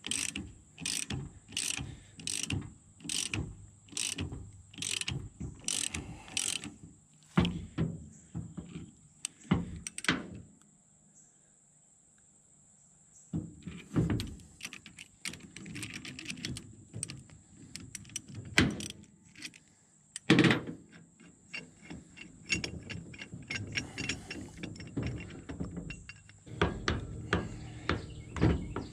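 Ratchet wrench clicking about twice a second as it turns the screw of a C-frame U-joint press that is pushing the U-joint bearing caps out of a driveshaft yoke, with a few sharper metallic knocks along the way and faster clicking near the end.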